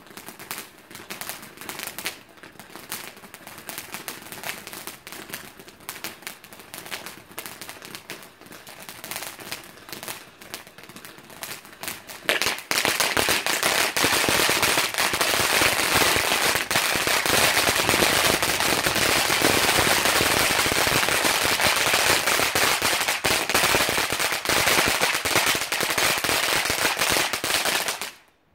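Ghengis Fireworks Mega Eruption firework fountain burning, a spray of sparks with many sharp crackles over a hiss. About twelve seconds in it suddenly gets much louder, a dense steady rush of crackling. It cuts off sharply near the end as the fountain burns out.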